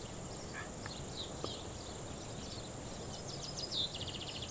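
Quiet outdoor ambience of small birds chirping in short, high, downward notes over a steady hiss, with a quick trill near the end.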